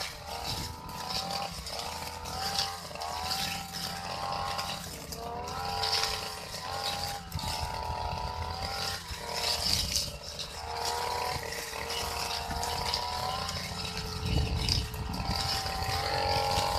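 Brush cutter engine running as its blade cuts through grass. The engine note rises and falls every second or so.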